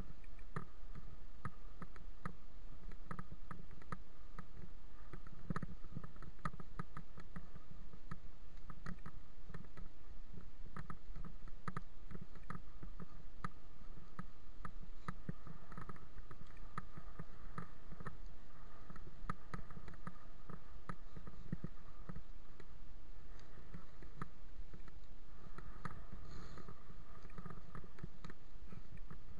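Bicycle rolling over a rough dirt lane, heard through a bike-mounted camera: a steady low rumble from the tyres and wind, with constant irregular rattling clicks as the bike and camera are jolted by the bumps.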